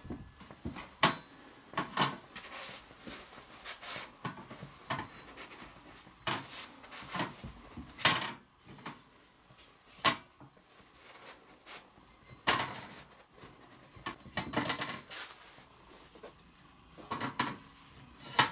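Scattered light clicks and knocks of metal being handled at the side of a small sheet-metal tabletop pizza oven as the oven-mitted hand works its solid-fuel holder. The sharpest knocks come about eight and ten seconds in.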